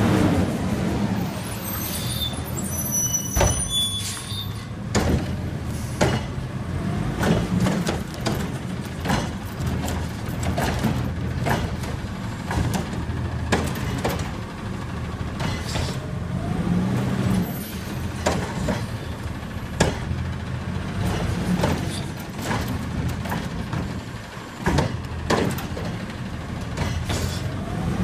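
Front-load garbage truck with a Curotto Can cart tipper: the diesel engine runs steadily while the can and arm clank and bang over and over as carts are grabbed and emptied, and the engine revs up now and then.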